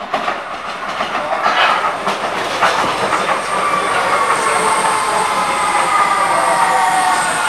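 Vienna U-Bahn train running into the platform: the wheels clatter over rail joints, and from about three and a half seconds a whine of several tones slowly falls in pitch as the train slows.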